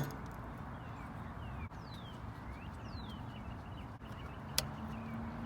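Quiet outdoor background with a few short, falling bird chirps and a single sharp click about four and a half seconds in.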